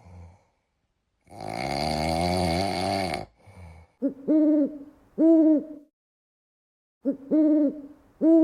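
A long, wavering, breathy tone, then four short hooting calls, each rising and falling in pitch, heard as two pairs.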